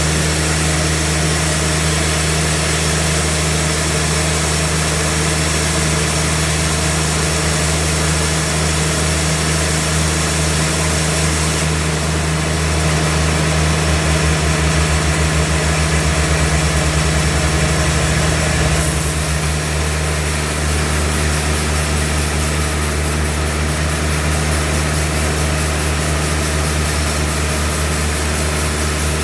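Sawmill machinery running steadily: a loud engine-like hum under a dense hiss. The sound shifts in character about two-thirds of the way through and runs slightly quieter after.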